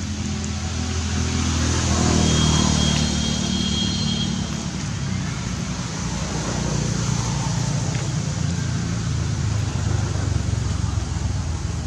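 A motor vehicle's engine running steadily, growing louder about two seconds in and then holding.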